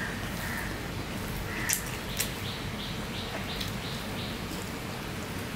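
Eating rice by hand, with two sharp mouth clicks about two seconds in. Behind it, a faint run of about seven short, high chirps in quick succession.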